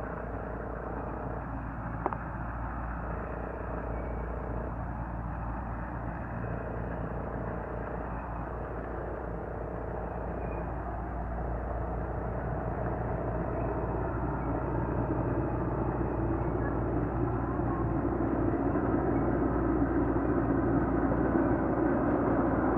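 A 15-inch gauge steam locomotive hauling a passenger train, its running sound growing steadily louder as it approaches. A single sharp click about two seconds in.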